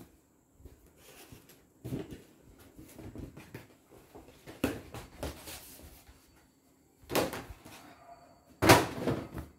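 Scattered knocks, rustles and handling noises as a folded saree is fetched and set down, with the loudest thump just before the end.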